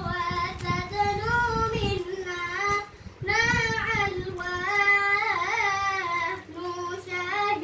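A high child's voice singing a sholawat, holding long notes with gliding ornaments and short breaks between phrases.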